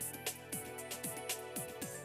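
Background music with a quick, steady beat and short falling bass notes.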